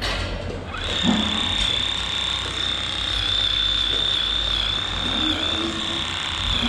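Electric livestock clippers running with a steady high-pitched whine, starting about a second in, as they cut the long hair of a cow's tail switch.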